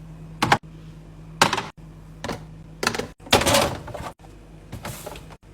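Items being set down and pushed into place in a refrigerator during restocking: a string of about six short clacks and thunks, with a longer rattle about halfway through, over a low steady hum.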